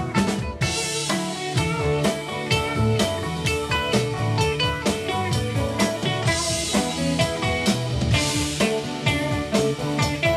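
Rock band playing an instrumental passage on drum kit, electric guitars, bass and keyboards, with two cymbal crashes in the second half.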